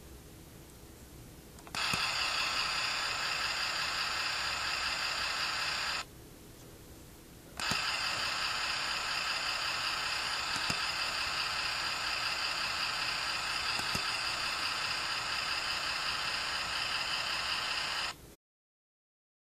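Sound module of a 1/32 diecast toy tour bus playing its built-in engine-style sound effect through a tiny speaker: a steady, buzzy rattle. It runs for about four seconds, stops for a second and a half, then runs about ten seconds more and cuts off abruptly near the end.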